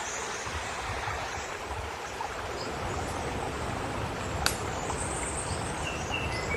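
Steady rushing of a waterfall, with a few short bird chirps near the end and a single sharp click about four and a half seconds in.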